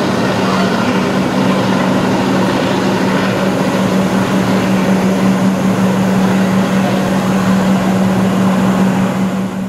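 Comeng electric suburban train standing at the platform, its onboard equipment giving a steady drone with one even low-middle hum over a rushing noise.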